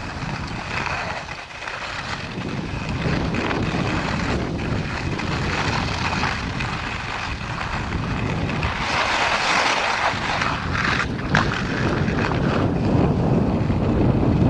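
Wind rushing over an action camera's microphone while skiing downhill, with skis hissing and scraping over groomed snow. The hiss grows louder about nine to ten seconds in.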